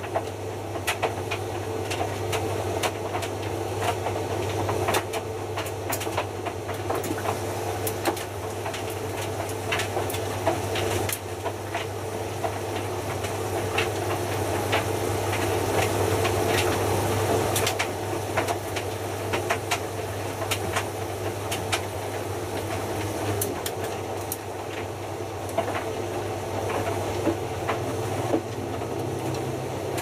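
Hotpoint Futura HF8B593 washing machine tumbling wet laundry while it heats the water for a 90 °C cotton wash. The drum motor hums steadily under frequent short knocks and splashes of the load dropping and sloshing in the drum.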